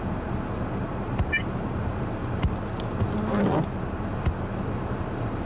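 Steady low vehicle rumble with a faint hum. A brief rising sound comes a little past halfway.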